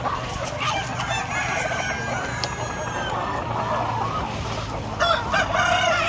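A large flock of native chickens clucking and calling at feeding time, with roosters crowing, in a dense, continuous chorus. Louder calls come in about five seconds in.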